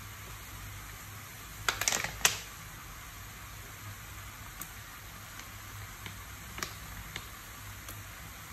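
Plastic squeeze bottle of chili sauce being handled: a cluster of sharp clicks about two seconds in, then a few fainter clicks as the sauce is squirted into the wok, over a steady low hiss.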